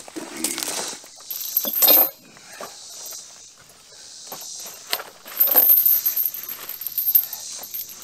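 Plastic bags and bubble wrap crinkling, with loose steel parts and a chain clinking, in irregular bursts as parts are unwrapped. The loudest bursts come about two seconds in and around five and a half seconds.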